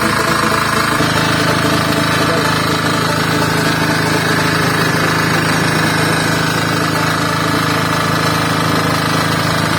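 Weima portable diesel generator's 296 cc single-cylinder engine running steadily with a clattering diesel note; its tone shifts slightly about a second in and then holds steady.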